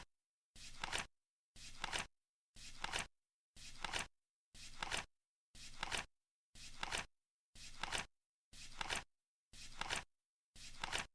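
Flip clock ticking off the seconds: once every second a short rustle of the flipping card ends in a sharp clack, in a steady even rhythm with silence between.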